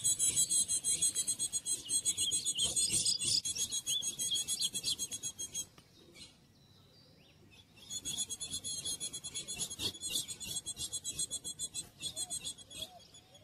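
An insect trilling in rapid, even high-pitched pulses, about six a second. It stops for about two seconds in the middle and then starts again. A few short bird chirps sound over it about three seconds in.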